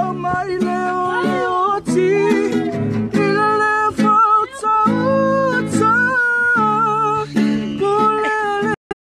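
A man singing, with long held notes, to a strummed acoustic guitar. The sound breaks off briefly near the end.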